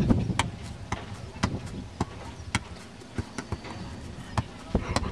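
A ball bouncing and being struck during play: about ten sharp knocks, irregularly spaced, with voices murmuring at the start.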